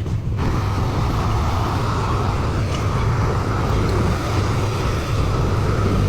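Excavator's diesel engine running steadily under load. A rushing noise joins it about half a second in.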